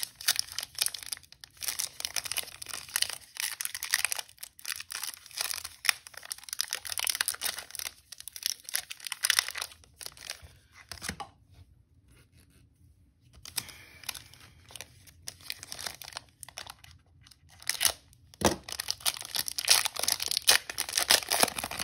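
Foil wrapper of a football trading-card pack being torn open and crinkled by hand, with a quieter pause about halfway through and louder crinkling near the end.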